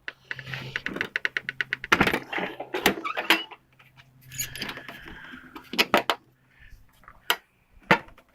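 A quick run of rapid clicks, then several sharp knocks and clanks as tools and the toolbox are handled.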